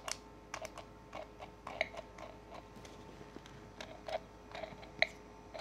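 Faint, irregular small clicks and plastic taps, a few a second, from a pink toy electric kettle as it is handled and fiddled with, after it has stopped working properly.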